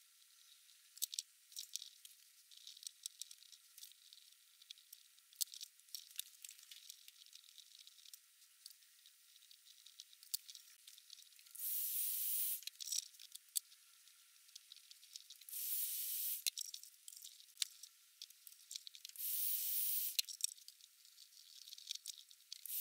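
Soldering wire joints at the bench: faint small clicks and crackles, then short bursts of hissing about a second long, three times, the sizzle of solder flux under the soldering iron.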